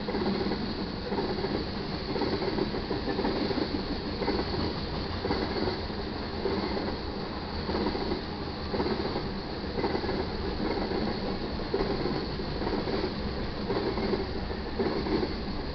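Freight train cars rolling past a grade crossing: a steady rumble and clatter of steel wheels on the rails, pulsing in loudness as the cars go by.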